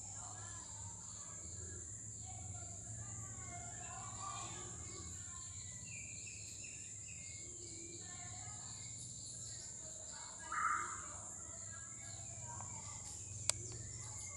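Outdoor forest ambience: a steady high-pitched drone under faint distant voices and scattered bird calls, with one short, louder call about ten and a half seconds in and a sharp click near the end.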